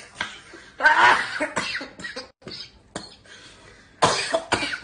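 A man coughing in several short fits, with the two harshest coughs near the end.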